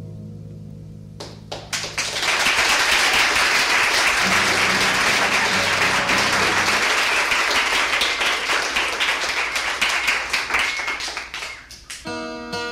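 A guitar piece's last chord dying away, then about ten seconds of audience applause, many hands clapping, before acoustic guitar playing starts again near the end.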